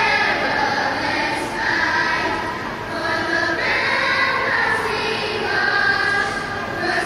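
Elementary-school children's choir singing in unison, holding long notes that change pitch every second or two.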